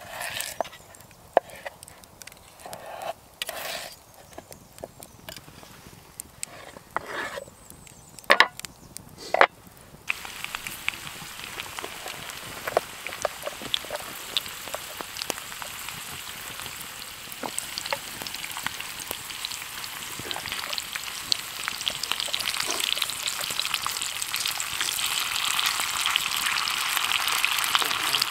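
Raw potatoes being cut into wedges with a knife on a wooden chopping board: scattered knocks and slicing sounds. About ten seconds in, potato wedges frying in a cast-iron skillet over a campfire take over, a steady sizzle with small pops that grows louder toward the end as the wedges are turned with a knife.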